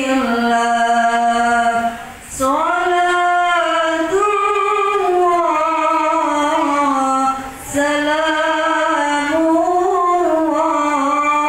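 Women singing an anthem in unison, in long held phrases with short breaks for breath about two seconds in and again past seven seconds.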